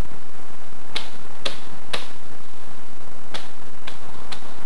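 Dry twigs snapping underfoot as a player walks across the forest floor: sharp clicks at walking pace, about two a second, in two runs of three.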